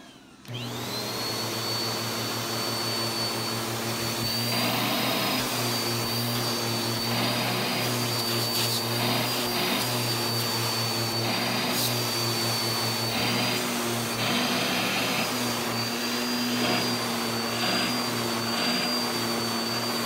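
Bissell PowerForce upright vacuum cleaner switching on about half a second in, its motor whine rising and then running steadily. From a few seconds in, the suction noise keeps changing as the hose nozzle is worked over fabric couch cushions.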